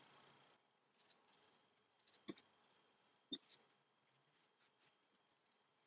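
Quiet handling of small steel shotgun parts being wiped down with a cloth patch: faint cloth rubs and a few light metal clicks, the sharpest about three seconds in.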